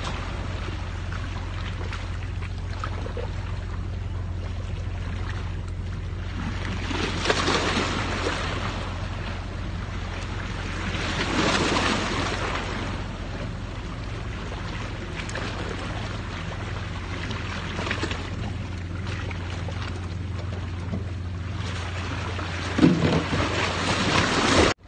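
Seashore wind and surf: a steady low rumble with several louder swells of rushing noise, and a few knocks near the end.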